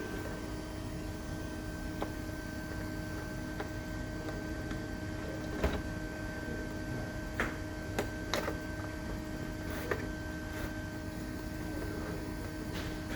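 Scattered small clicks and taps of hard parts being handled during disassembly of an all-in-one computer, over a steady electrical hum. The clicks come singly, about a dozen in all, several close together between about 7 and 10 seconds in.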